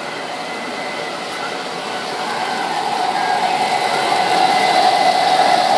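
O gauge model diesel locomotives running on three-rail track, a steady mechanical rolling hum that grows louder as the train approaches.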